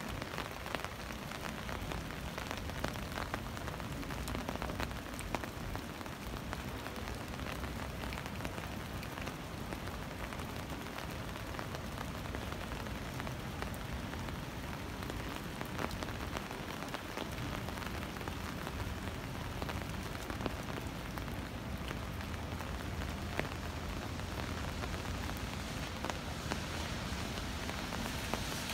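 Steady rain falling on a wet street, with many small raindrop ticks scattered through it.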